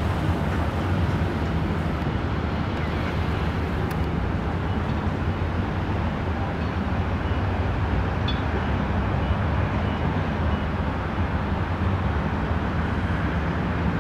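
Steady low rumble of distant road traffic: urban background noise with no distinct events.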